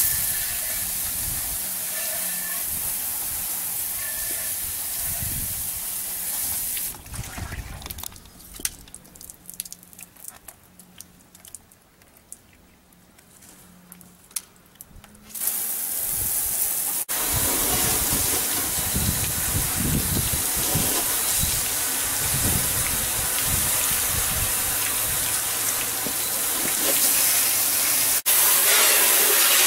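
Water spraying from a garden-hose-fed PVC underbody wash wand, a steady hiss of spray onto the vehicle and wet pavement. About seven seconds in it falls much quieter, with a few scattered clicks, and the spray returns louder after about fifteen seconds.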